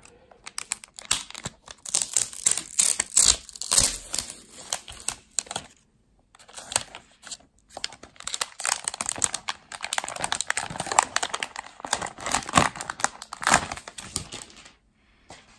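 Clear plastic protective film being peeled off the back of a new Apple iPad, crinkling and crackling in bursts, with a short pause about six seconds in.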